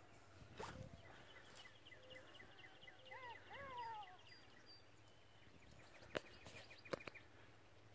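Quiet outdoor ambience with faint bird chirping: runs of quick, evenly spaced chirps and a couple of brief rising-and-falling calls about three seconds in. A few sharp knocks come near the end.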